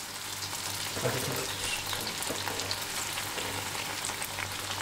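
Bread slices deep-frying in very hot oil in a steel kadhai, sizzling and crackling steadily while a perforated skimmer stirs and turns them.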